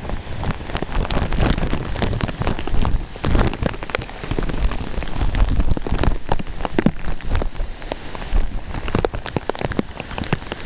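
Tropical-storm rain falling, with many sharp drop hits close to the microphone over a low rumble.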